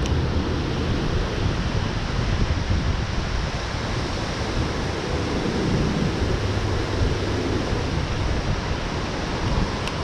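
Steady rushing noise of wind and rain, with wind buffeting the microphone in low rumbles.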